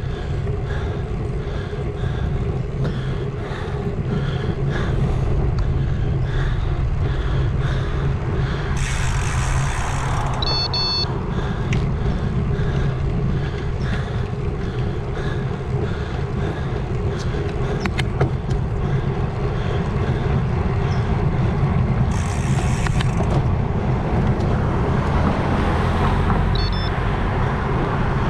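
Road bike riding on pavement: steady tyre and wind rumble on a handlebar-mounted action camera's microphone, with a faint regular ticking from the bike. Two short bursts of louder hiss come about nine seconds in and again about twenty-two seconds in, the first followed by a brief thin high tone.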